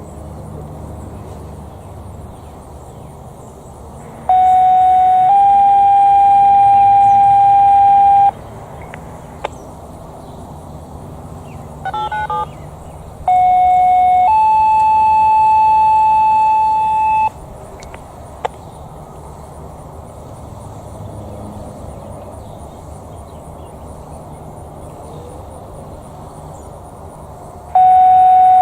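Two-tone sequential paging tones on a dispatch radio: a short lower tone steps up to a longer, higher held tone, in three bursts of about four seconds each. A brief string of quick touch-tone beeps comes between the first two bursts.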